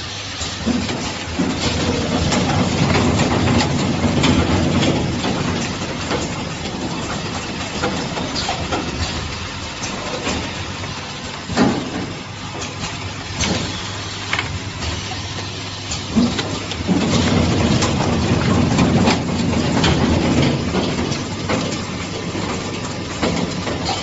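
Automatic network patch-cord assembly line running: a steady machine din with frequent clicks and knocks from its working stations. It grows louder about two seconds in and again around seventeen seconds, with a couple of sharper knocks in between.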